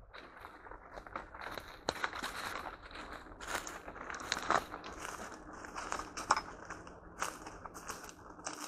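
Footsteps crunching and crackling through dry leaves, twigs and undergrowth on a forest trail, an irregular run of snaps and rustles.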